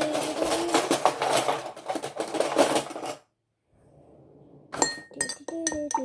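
A metal spoon clattering and clinking in a drinking glass, with a steady pitched hum under it. After a brief pause, several sharp clinks ring out near the end.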